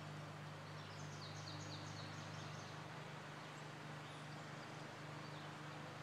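Outdoor ambience with a steady low hum and hiss. About a second in, a small songbird gives a rapid run of about eight high chirps lasting over a second.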